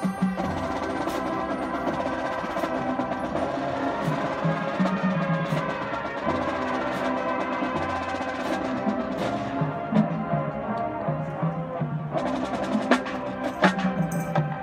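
High school marching band playing its field show: sustained brass and woodwind chords over percussion, with a cluster of sharp percussion hits near the end.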